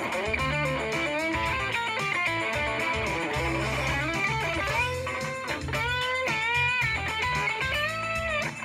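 PRS electric guitar playing a lead melody with string bends and vibrato, the notes sliding up and down, over a backing track with bass and a steady ticking beat.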